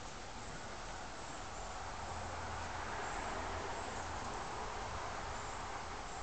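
Domestic cat growling low and steadily in a fight standoff, swelling from about two seconds in: a threat warning to the other cat.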